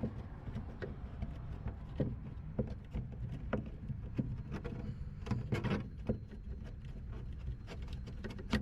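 Scattered small clicks and taps from a trunk lock assembly and its parts being unscrewed and handled, over a steady low rumble.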